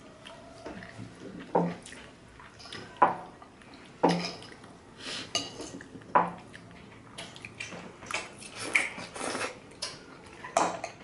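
Metal fork clinking and scraping against a plate as spaghetti is twirled, several sharp clinks in the first six seconds, with softer wet chewing sounds close to the microphone in between.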